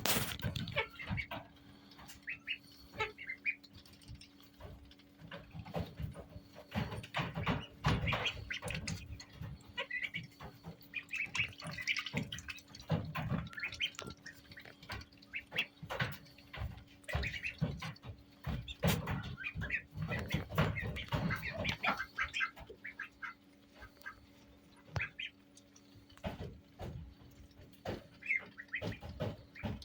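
Indian Runner ducklings peeping in short high calls scattered throughout, with frequent knocks and bumps. A faint steady hum runs underneath.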